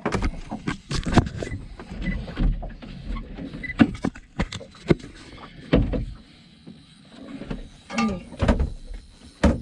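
Irregular sharp knocks and clicks over a low rumble, as a spinning rod and reel are worked to bring in a hooked fish aboard a small boat.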